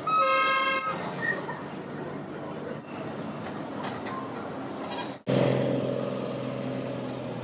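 A horn toots once for about a second, over the steady running noise of the Darjeeling Himalayan Railway toy train. About five seconds in, the sound breaks off sharply and comes back louder as a steady low drone of the train running.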